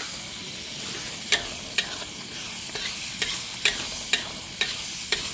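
Tomatoes sizzling in hot oil in a frying pan while a spatula stirs them, knocking and scraping against the pan about twice a second from about a second in.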